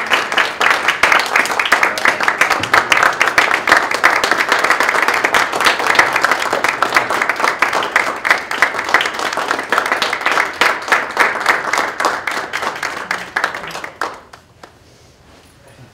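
Audience applauding, a dense patter of many hands clapping that tapers off and stops about fourteen seconds in.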